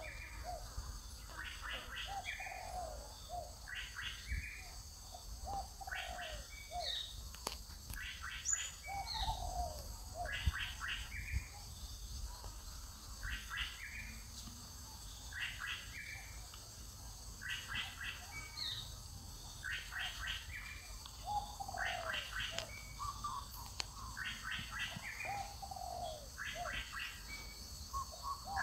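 A bird calling over and over, one short phrase about every one and a half to two seconds, each a quick cluster of high notes with a lower falling note.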